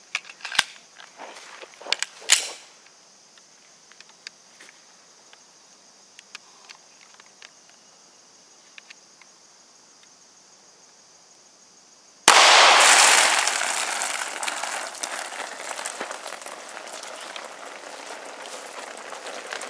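A single shot from a Magnum Research Baby Desert Eagle 9mm pistol, sudden and loud, then several seconds of water splashing and spilling from the burst water jug, slowly fading.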